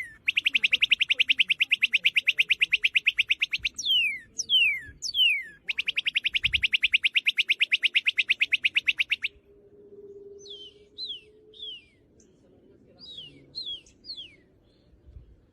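A bird mimicking a car alarm: loud falling whistles, then two runs of rapid beeps at about ten a second, each lasting a few seconds. Softer, scattered falling whistles follow in the second half.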